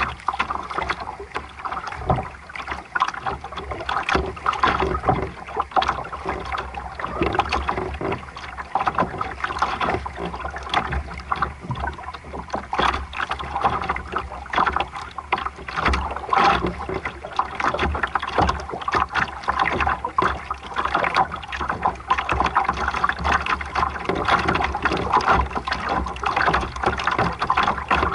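Water splashing and rushing against the hull of a sailboat under way, an uneven, continuous wash.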